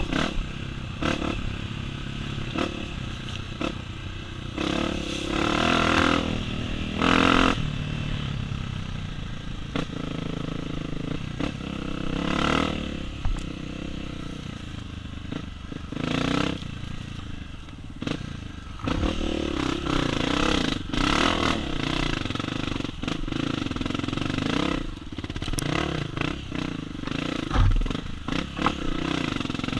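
Dirt bike's single-cylinder four-stroke engine revving up and easing off again and again while riding a rough trail, with scattered knocks and rattles.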